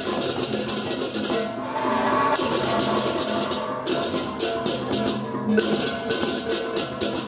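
Balinese baleganjur gamelan playing: rapid interlocking clashes of cengceng hand cymbals over kendang drums and pitched gongs. About one and a half seconds in, the cymbals stop for about a second, leaving the gongs and drums, then come back in.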